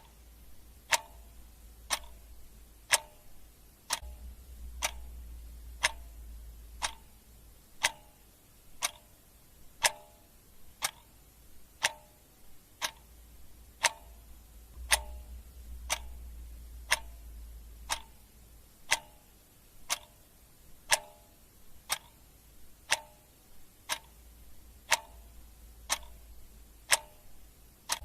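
Clock ticking steadily, one tick a second, with a faint low hum coming and going underneath.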